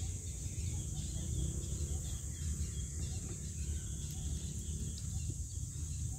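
Outdoor ambience: a steady high-pitched insect drone over a low, uneven rumble, with no distinct events.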